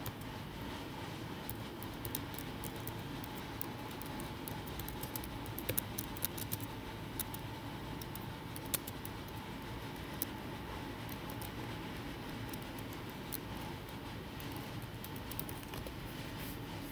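Computer keyboard typing: scattered, irregular key clicks over a faint steady background hiss.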